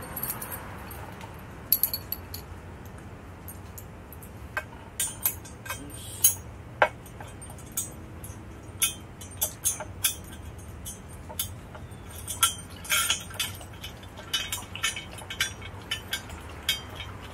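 Small metal hardware, bolts and washers, clinking and tapping as it is handled and sorted: scattered single clicks, then a busier run of clinks near the end.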